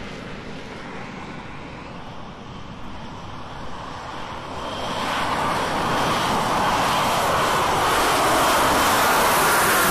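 F-35B Lightning II's single Pratt & Whitney F135 jet engine running in hover flight: a steady rushing jet noise that grows much louder about halfway through and stays loud.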